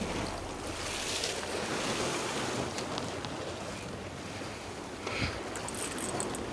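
Sea surf washing on a rocky shore, with wind buffeting the microphone.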